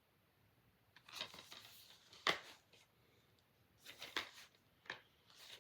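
Plastic DVD cases being handled: a run of light clicks and rustling, with one sharp click a little over two seconds in.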